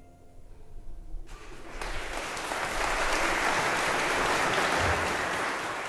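The last held violin note dies away. About a second later audience applause starts and swells to steady clapping.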